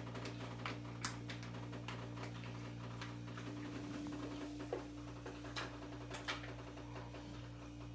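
A thin clear plastic chocolate mould being handled and flexed on a tabletop to release a chocolate heart: scattered light clicks and ticks at irregular intervals over a steady low hum.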